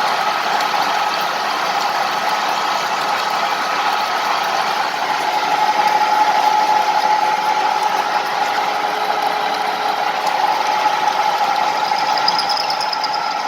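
Metal-turning lathe running while drilling: steady machine noise with a high whine that grows stronger about five seconds in.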